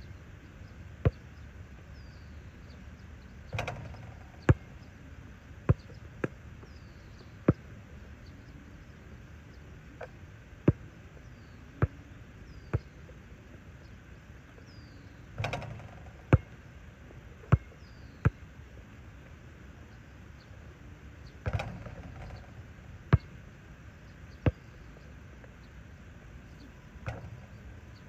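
A basketball bouncing sharply on an outdoor asphalt court, a dozen or so single bounces at uneven gaps. Three times a softer, longer rustle comes just before a run of bounces, where a shot drops through the hoop's net. Small birds chirp steadily in the background.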